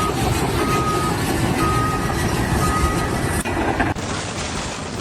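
A heavy vehicle's reversing alarm beeps about once a second, each beep a single steady tone, over the low rumble of a diesel engine. The beeping stops about three seconds in.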